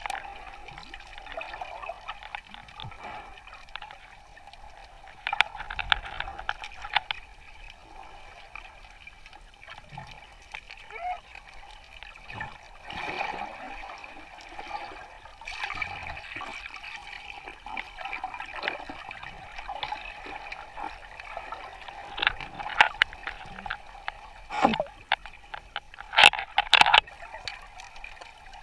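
Water sloshing and gurgling around a snorkeler's camera, over a steady hum, with several short clusters of splashing; the loudest come near the end.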